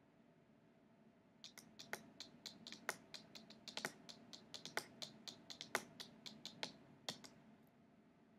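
Tarot cards being handled on a table: a run of light, quick, irregular clicks and taps, roughly five a second. It starts about a second and a half in and stops about a second before the end.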